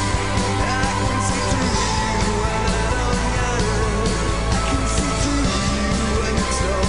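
Live indie/psychedelic rock band playing with full drums, bass, guitars and keyboards, with a sung vocal line over a steady beat.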